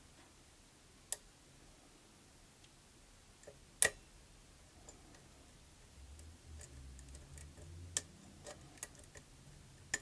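A few sharp, separate metal clicks from lock picks working the pins of a pin tumbler lock under tension, the loudest about four seconds in, with faint handling rumble in the second half.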